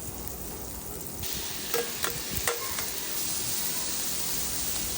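Shrimp sizzling in avocado oil on a Blackstone flat-top griddle. The sizzle gets louder about a second in, and a metal utensil clinks against the griddle a few times around the middle.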